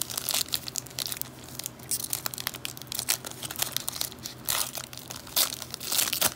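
Cellophane wrapper of a trading-card cello pack crinkling and tearing as it is worked open by hand, a rapid irregular series of crackles with louder rips near the end.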